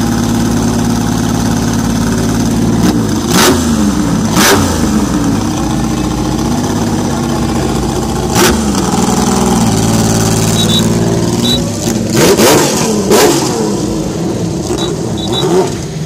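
Lancia Stratos rally car's Ferrari Dino V6 idling through open exhaust pipes, blipped hard about six times, each rev rising and falling quickly with crackles from the exhaust.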